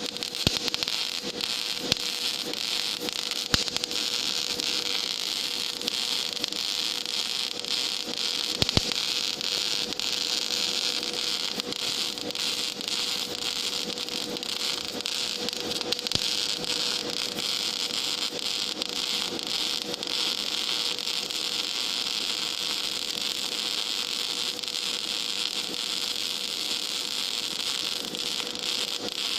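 Gas metal arc (MIG) welding arc on 10 mm plate, a steady crackling hiss peppered with short clicks and pops, with a faint steady hum underneath.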